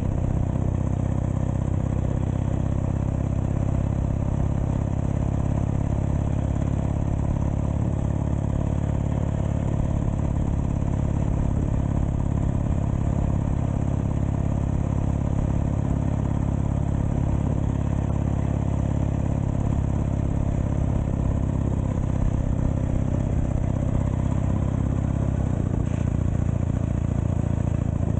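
1920 Douglas flat-tank motorcycle's flat-twin engine running at a steady, even pace.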